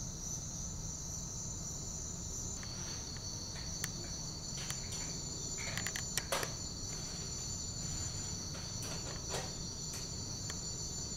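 Steady high-pitched trilling of crickets over a low steady rumble, with a scattering of short clicks and taps through the middle.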